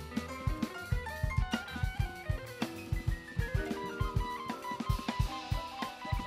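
Live jazz band playing an instrumental passage: a busy drum kit with bass drum and snare under electric guitar lines.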